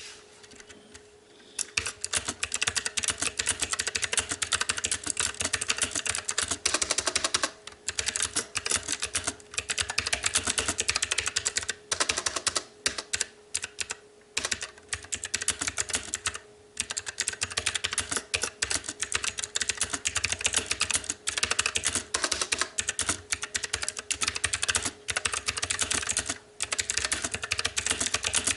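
Fast continuous typing on a STOGA retro-typewriter-style mechanical keyboard with clicky blue switches: rapid sharp clicks in long runs, starting about a second and a half in and broken by a few brief pauses.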